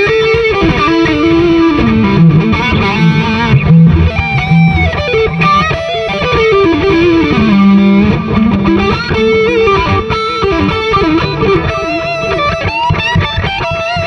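Electric guitar with distortion played through a multi-effects pedal, a melodic lead line with bent and gliding notes.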